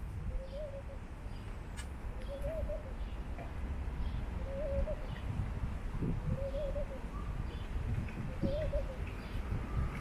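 A dove cooing, one short coo roughly every two seconds, over a steady low background rumble.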